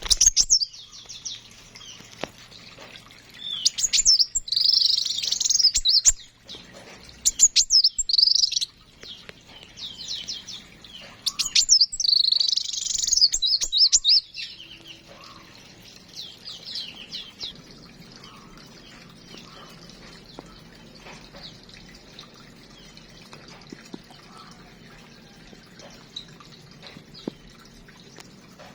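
Small aviary birds chirping and singing: loud bursts of rapid, high chirps over roughly the first fourteen seconds, then only faint, scattered calls.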